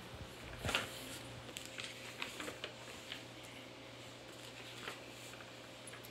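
Faint handling noise: soft rustles and light taps, the strongest about a second in, over a steady low hum.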